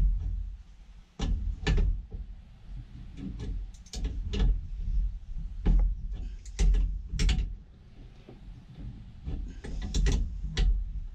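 Irregular knocks and clicks over a low steady rumble, about a dozen sharp ones, quieter for a second or so near the end before a cluster of them.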